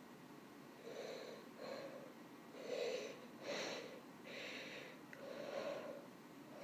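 A woman's pre-sneeze breaths: about six separate, breathy inhales, each about half a second long, as a sneeze builds that she is trying to hold back.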